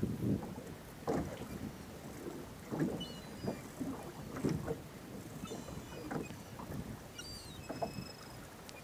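Choppy sea water lapping and slapping against the hull of a small drifting boat, in irregular splashes about once a second.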